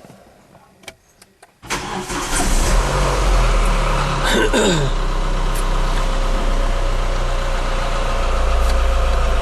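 A 2007 Renault Mégane 2.0 four-cylinder engine cranks and catches about one and a half seconds in, after a few faint clicks. It then runs steadily at idle. The mechanic traces the car's reported noise to the variable camshaft pulley.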